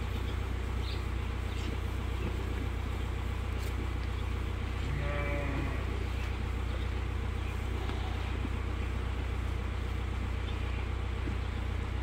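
A sheep bleats once, briefly, about five seconds in, over a steady low machine hum.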